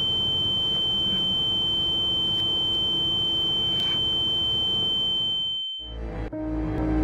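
A steady high-pitched ringing tone over low background noise: a film sound effect of ear ringing, standing for a dazed woman's blow to the head. It cuts off about six seconds in, and soft piano music begins.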